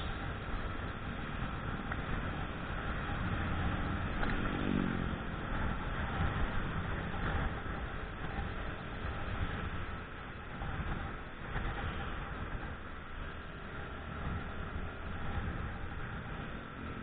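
Yamaha Jupiter Z underbone motorcycle's four-stroke single running on the move, mixed with wind rushing over the microphone and street traffic. A short falling engine note comes about four and a half seconds in.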